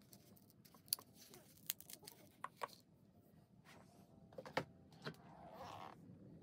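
Faint, scattered clicks and crinkles of a thin plastic wrapper being handled, with a few sharper ticks and a short soft rustle near the end, as an instant miso soup ball is taken out of its packaging and set down in a bowl.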